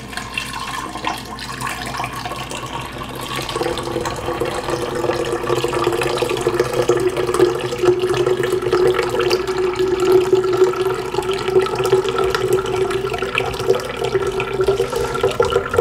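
Freshly blended beet juice pouring through a metal mesh strainer into a glass pitcher, a steady stream splashing into the juice already in it. It grows louder over the first few seconds, and a hollow ringing tone from the filling pitcher sets in about three and a half seconds in.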